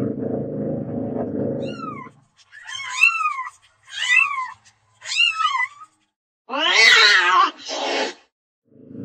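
Domestic cat meowing. A low, dense rumble stops about two seconds in; then come four short meows, each rising and falling in pitch, a longer, louder harsh yowl and a brief noisy burst. The low rumble starts again near the end.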